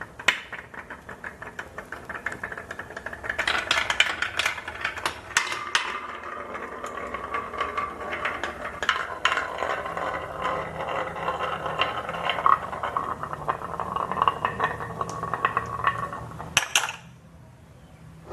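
Marbles rolling and clattering down a marble run: a steady rolling ring with a dense stream of clicks as they knock against the track and each other. It gets busier about three and a half seconds in and stops with a sharp clack near the end.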